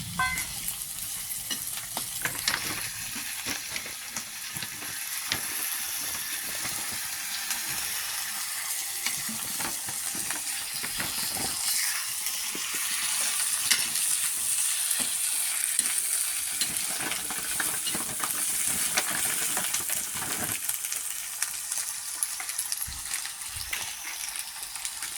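Food frying in a pan, a steady sizzle with the repeated short scrapes and clicks of a spoon stirring it, a little louder in the middle.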